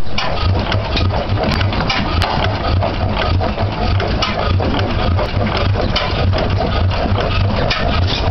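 York 6 HP horizontal single-cylinder stationary engine running steadily, with a repeating low thump from its firing strokes and many sharp mechanical clicks.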